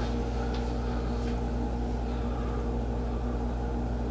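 A steady low droning hum with no distinct events.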